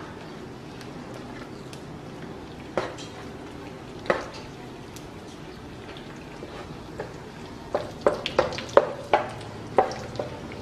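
Sliced sausage frying in oil in a nonstick pan with a faint steady sizzle, while a wooden spatula knocks and scrapes against the pan: two knocks in the first half, then a quick run of about eight taps near the end.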